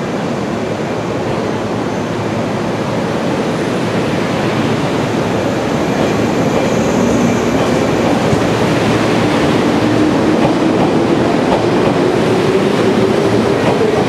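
485-series electric train pulling away from a station platform and gathering speed: steady running noise that grows louder, with the traction motors' whine rising in pitch in the second half.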